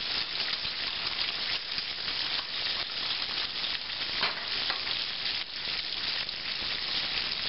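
Buttermilk-battered steak frying in a skillet of hot oil, a steady sizzle, its frying slowed as the steak is nearly done. Under it, a wire whisk stirring cream gravy in a stainless saucepan.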